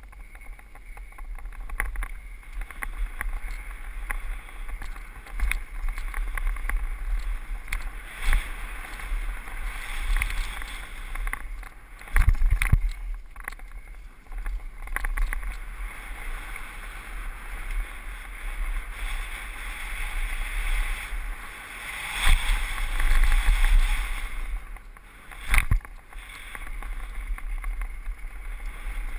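Mountain bike descending a dirt and rock trail, heard from an onboard camera: wind rumbling over the microphone, tyre noise and frequent rattles and clunks of the bike over bumps, with harder jolts about 12, 22 and 26 seconds in.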